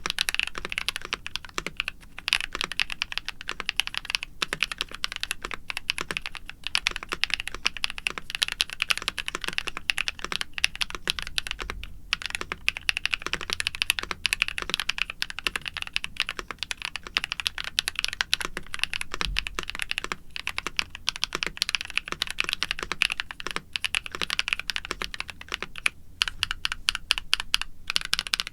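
Fast continuous typing on a NuPhy Halo65 mechanical keyboard with lubed Gateron Night Breeze linear switches, an aluminium plate, stock foams and doubleshot PBT keycaps: a dense run of crisp keystrokes with a few short pauses.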